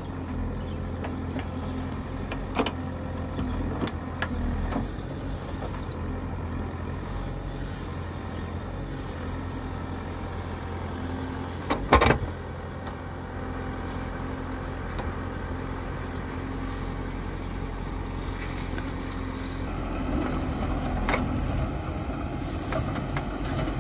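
Manitou backhoe loader's diesel engine running steadily while its backhoe arm digs a trench in sand, with a few light knocks and one loud sharp knock about halfway through.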